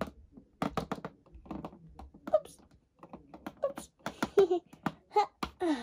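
Light plastic clicks and taps from Lego minifigures and a small plastic toy bag being handled and set down on a Lego baseplate, scattered irregularly.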